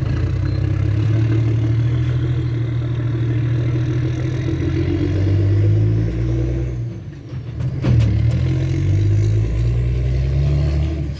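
Heavy diesel engine of a construction vehicle running steadily. It eases off briefly about seven seconds in, then picks up again with a sharp knock.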